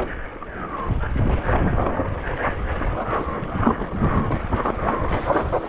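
Wind buffeting the microphone as an e-bike is ridden over rough trail, with frequent knocks and rattles from the bike.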